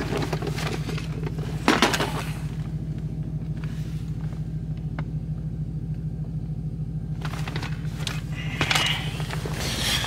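Vehicle engine running steadily, heard from inside the cab: an even low hum with a fine, regular pulse. Two brief louder noises cut in, just before two seconds in and near nine seconds.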